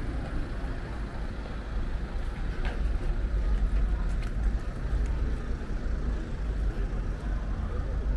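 City street ambience: road traffic with a steady low rumble.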